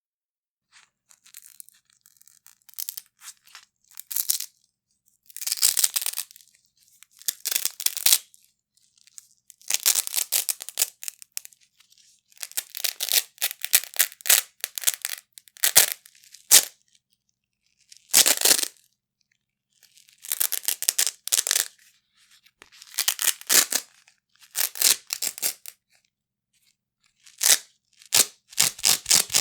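Large pieces of Velcro (hook-and-loop fastener) pulled apart again and again, a crackly tearing rip each time. Some rips are slow and drawn out, others short and quick, with brief silent pauses between them.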